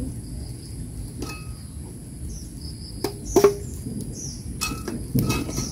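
A few sharp knocks and clinks as a metal wok and spatula are handled on a clay stove, the loudest about three and a half seconds in with a short ring. Insects drone steadily at a high pitch, with birds chirping.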